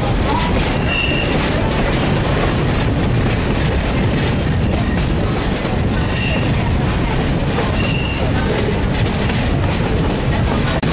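Passenger train cars rolling round a curve, heard from an open-sided car: a steady loud rumble of steel wheels on the rails, with three brief high wheel squeals.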